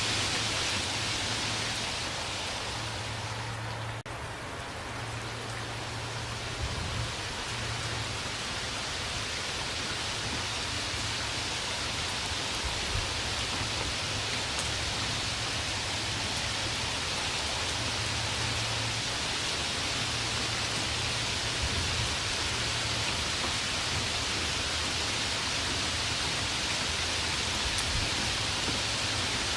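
Steady, dense rainfall without thunder, an even hiss of falling rain; it briefly softens about four seconds in.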